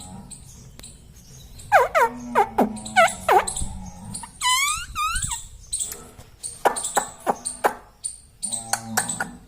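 Indian ringneck parrot calling: a few sharp squawks that fall steeply in pitch, a wavering call about halfway through, then a quick run of short clicks and chirps.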